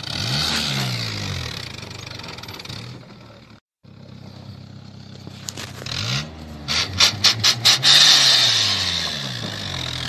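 Pickup truck engine revving up and down as it labours up a steep, loose dirt track, over a steady hiss of tyres and dust. The sound cuts out for a moment a little before the middle; later a quick run of about six sharp knocks comes during a hard rev.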